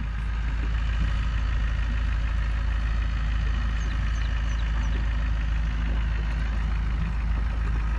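Small boat outboard motor idling steadily.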